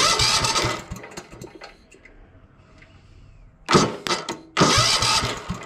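Tecumseh HH100 single-cylinder engine being pull-started by its recoil rope three times, a long pull and then two shorter ones. It turns over on starter fluid with no carburetor fitted and does not keep running.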